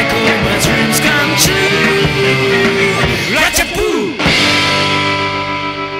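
Rock band with two electric guitars, bass and drums playing a song's closing bars. About four seconds in, the band hits a final chord that rings on and slowly fades.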